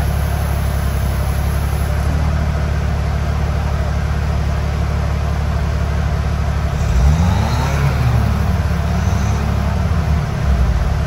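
Off-road vehicle engine running at low revs. About seven seconds in it revs up, its pitch rising, and then it makes a slower rise and fall.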